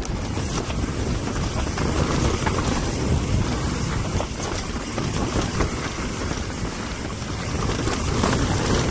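Wind buffeting the camera microphone on a mountain bike descending fast, mixed with the rumble of tyres on a dirt trail and small rattles from the bike. The noise is steady and swells a little near the end.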